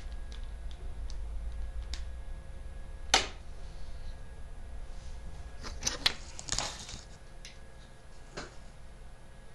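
A few scattered clicks and knocks of objects being handled, the loudest about three seconds in and a short cluster around six seconds, over a faint low hum.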